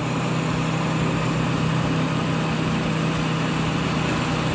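Large tracked wood chipper running steadily while its conveyor discharges chips onto a pile: an even engine drone with a constant low hum and no change in pitch.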